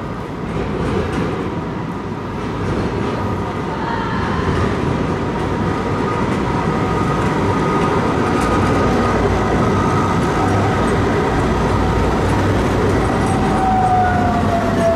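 Eurotram low-floor electric tram running on its rails: a steady rolling rumble with thin whines from the electric drive, one of which slides down in pitch near the end.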